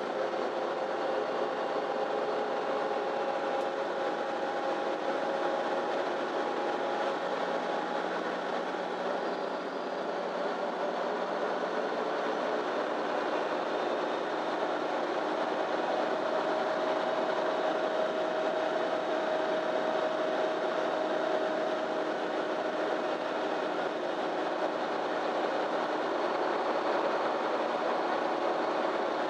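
Inside a MAN Lion's City Ü bus while it drives: steady engine and road noise with a faint whine whose pitch changes; one whine fades about nine seconds in and a new one comes in about halfway through.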